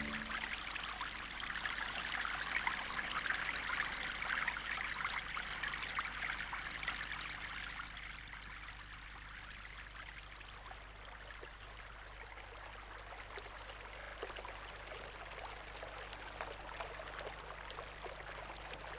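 Water flowing and trickling, as of a small stream, louder for the first several seconds and then settling softer.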